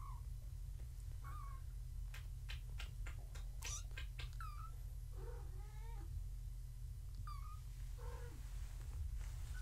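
Three-week-old kittens mewing: a string of short, high mews with a lower, longer cry in the middle. Light clicks and rustles come about two to four seconds in, over a steady low hum.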